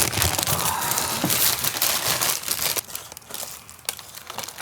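Packaging being crinkled and crumpled by hand: dense crackling for about the first two and a half seconds, then quieter, scattered crinkles and clicks.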